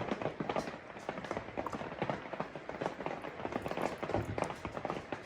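Rain pattering on a roof: dense, irregular light taps, several a second.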